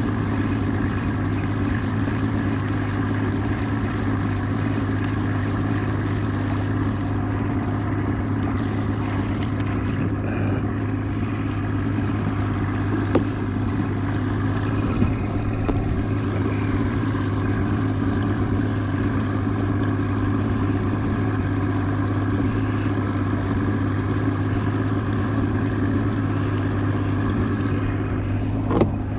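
Outboard motor running steadily at a constant low speed, with a few faint knocks about halfway through and again near the end.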